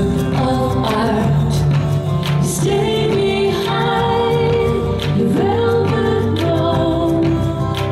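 Live singing over acoustic guitar, a held, slow melody, recorded on a phone in a rehearsal room.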